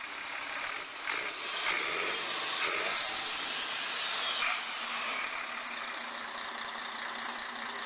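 Intro sound effects: a hissing, whooshing noise that swells over the first few seconds and eases off about halfway. It then settles into a steady hiss with a faint low hum.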